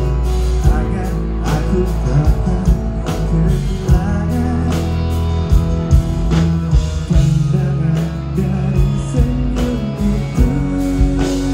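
Live band playing with a steady drum beat, bass and guitar, and a male singer singing into a handheld microphone.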